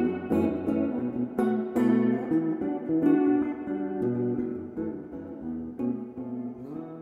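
Background music on plucked guitar, a string of picked notes that grows quieter toward the end.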